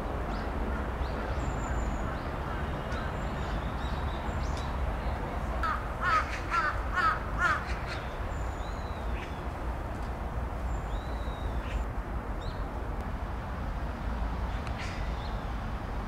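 A crow cawing four or five times in quick succession about six seconds in, over a steady low rumble of distant traffic. Small birds give thin, high chirps here and there.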